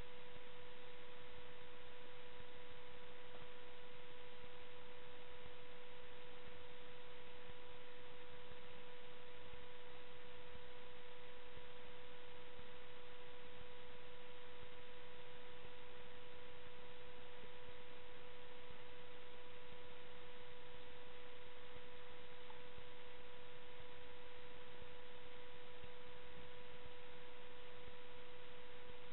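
A steady single-pitched tone over constant hiss, unchanging throughout.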